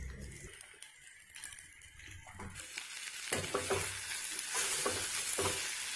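Brinjal, shallots and dried mango pieces frying and sizzling in a steel kadai as they are stirred with a metal ladle, with short scrapes of the ladle against the pan. The sizzle grows louder about halfway through as the stirring gets going.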